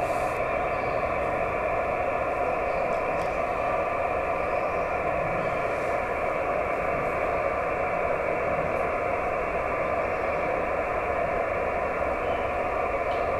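Steady hiss from the Icom IC-910H receiver in SSB mode on the 432 MHz band, cut off sharply above about 2.7 kHz by the SSB filter. It is the receiver listening for a weak JT65 moonbounce signal, and no clear tone stands out of the noise.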